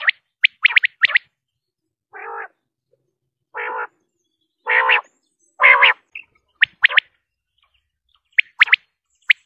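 Quail calling: sharp whistled notes in quick groups of two or three, then four lower, hoarse croaking notes about a second apart. The whistled groups come back near the end.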